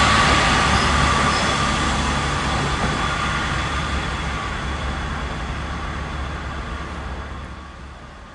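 A passenger train running past on the rails and moving away, its rumble fading steadily.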